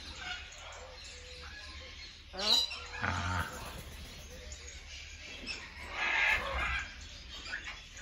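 Amazon parrots vocalising in an aviary: one short rising call about two and a half seconds in, and a rougher, noisier call around six seconds.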